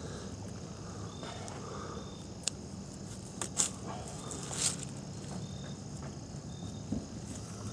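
Dry leaf litter rustling, with three or four sharp crackles near the middle, as a squirrel is handled and skinned on the forest floor. Faint short high chirps repeat about once a second.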